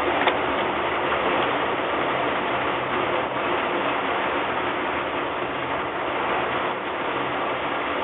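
Steady mechanical hum and hiss with a few faint ticks near the start.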